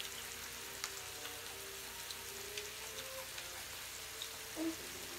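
Meat sizzling on a tabletop grill pan: a steady hiss with scattered small pops and crackles. A brief louder sound comes near the end.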